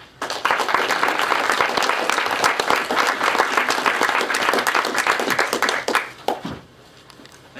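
Audience applauding for about six seconds, then dying away.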